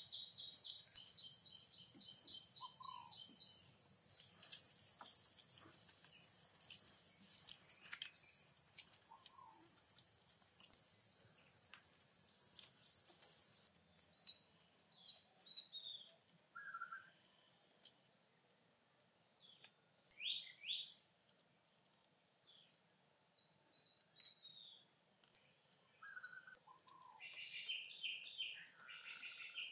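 A loud, steady, shrill chorus of forest insects, with short bird chirps scattered through it. The insect drone breaks off abruptly about 14 seconds in, comes back about 20 seconds in, and drops lower again near the end.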